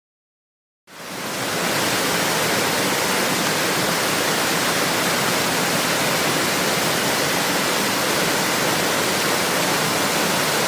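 A waterfall's steady rush of falling water, fading in from silence about a second in.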